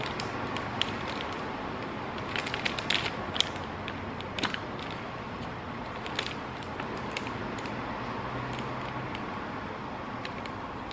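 Clear plastic packaging crinkling and rustling in the hands as items are lifted out of a cardboard box, in scattered bursts of crackles over a steady hiss.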